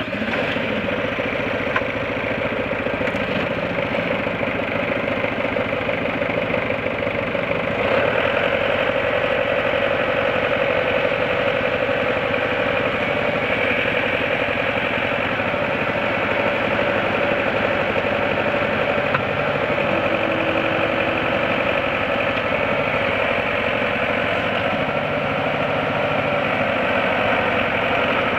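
1997 Bobcat 863 skid steer's diesel engine running steadily at idle, a little louder from about eight seconds in.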